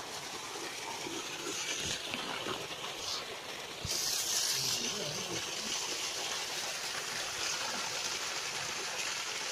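Water gushing steadily from an irrigation pump's pipe outlet into a field channel, with a brief louder hiss about four seconds in.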